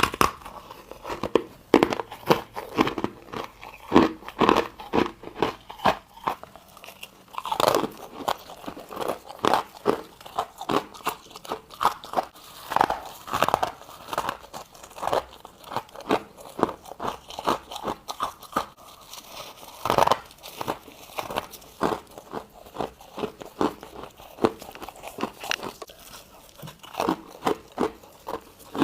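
A person biting and chewing ice or frozen frost close to the microphone: a long run of sharp, irregular crunches, several a second.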